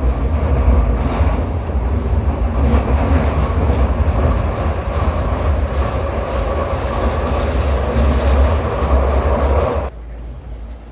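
Glasgow Subway train running on the rails, a loud steady rumble with some clickety-clack, which cuts off abruptly near the end.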